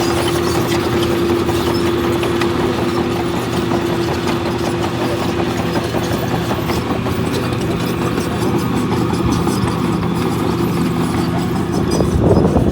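Heavy diesel engine of earthmoving machinery running steadily, its pitch shifting partway through, with a brief louder rising surge near the end.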